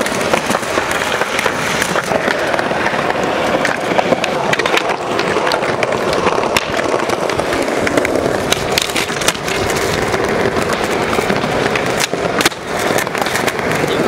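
Skateboard wheels rolling over paved plaza slabs, loud and close, with repeated sharp clacks of the board popping, slapping and landing during flatground tricks.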